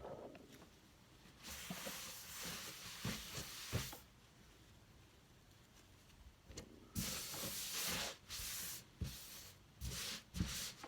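Steel knife blade scraping across a whetstone in sharpening strokes: one hissing stroke of about two and a half seconds, a pause, then a stroke of about two seconds, followed by several short quick strokes near the end.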